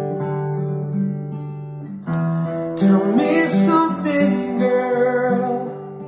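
Acoustic guitar playing held chords, with a man's singing voice coming in about halfway through.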